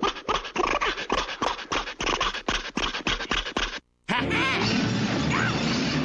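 Cartoon sound effects: a duck imitating a car engine with rapid rhythmic panting chugs, about six or seven a second, which cut off abruptly a little under four seconds in. After a brief silence a loud, continuous clattering noise follows, under music.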